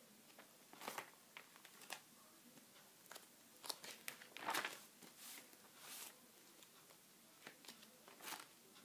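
Clear plastic sheet protectors in a ring binder crinkling and rustling as the pages are turned: a string of faint, short rustles, the loudest about halfway through.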